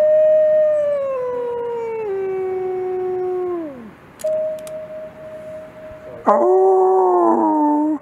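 A lone wolf howling: one long howl that rises, holds, steps down in pitch about two seconds in and falls away near four seconds. A second, louder howl starts suddenly about six seconds in and holds to the end.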